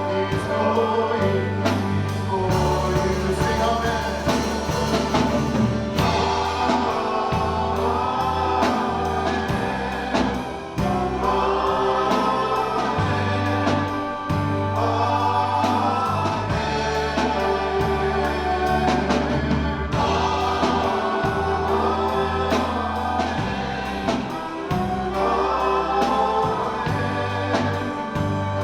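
Christian worship song: several voices singing together over instrumental accompaniment with a sustained bass line.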